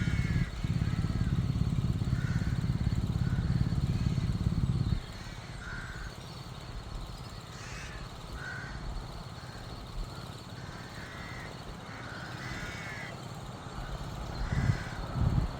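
A loud low rumble for about five seconds that cuts off suddenly, then birds calling repeatedly in short, spaced calls.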